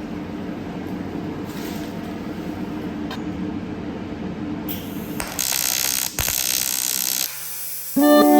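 Welding on aluminium: a steady buzzing arc, turning into a louder hiss about five seconds in for two seconds. Music begins near the end.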